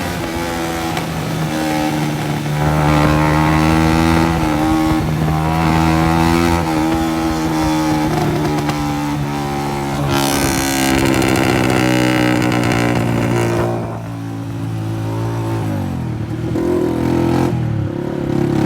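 Honda CG 125's single-cylinder four-stroke engine running loud through a burst silencer, effectively a straight pipe, as the bike is ridden along. The exhaust note holds steady for most of the time, then falls twice near the end and picks up again.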